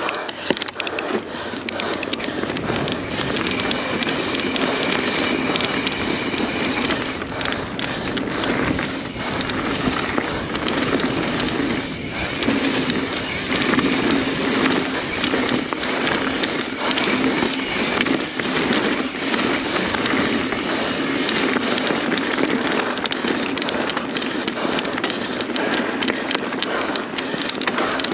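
Mountain bike riding fast down a dirt race trail: knobby tyres rolling over dirt and roots, with the chain and frame clattering and rattling in a dense, irregular stream of clicks over steady rushing noise.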